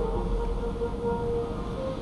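Orchestral music with long held horn notes playing on the car radio, over the low steady rumble of the car driving on a wet road.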